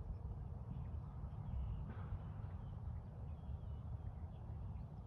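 Steady low rumble of outdoor ambience, typical of wind on the microphone, with a few faint bird chirps.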